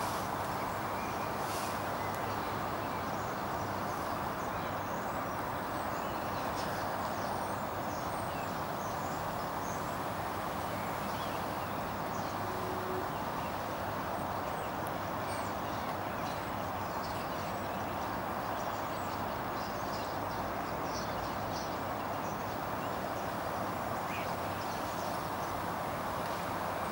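Large flock of common starlings in a murmuration, many birds calling at once into a steady hissing chatter, with scattered higher chirps and clicks.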